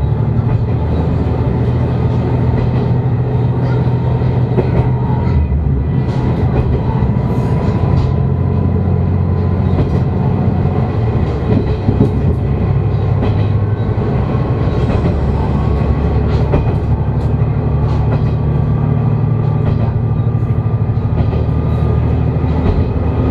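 Diesel railcar running along the line, heard from inside the car: a steady engine drone with a thin whine that slowly rises in pitch, and occasional clicks from the wheels on the rails.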